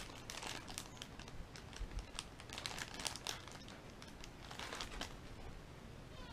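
Plastic packaging crinkling and rustling under a gloved hand, in irregular bursts with small sharp clicks.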